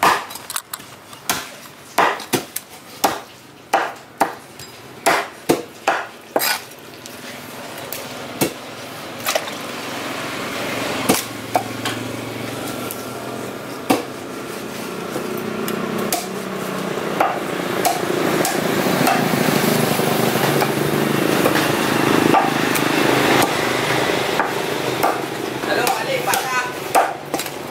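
Heavy fish knife striking a wooden chopping block as fish is cut into fillets: a quick series of sharp knocks for about six seconds, then only occasional knocks while a steady background noise with faint voices slowly swells.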